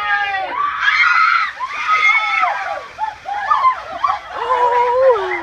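Buckets of ice water dumped over a seated group, splashing onto them and the paving from about half a second in. Many people shriek and yell at the cold water over the splashing.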